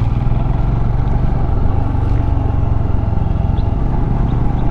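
Royal Enfield Himalayan's 411 cc single-cylinder engine running steadily while riding, with wind noise on the microphone.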